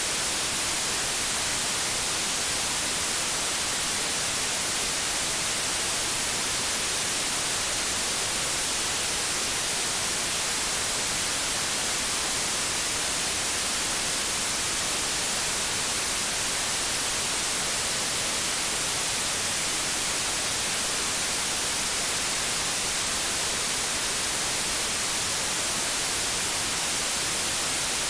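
Steady white noise: an even, unbroken hiss, brightest in the high end, with no change in level or character.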